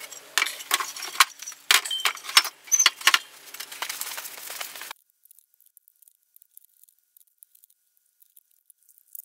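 A quick, irregular run of sharp metallic clinks and knocks, a few ringing briefly, from valve-train parts (valves, springs, retainers) and tools handled on a stripped cylinder head. About five seconds in it drops away to near silence with only faint ticks.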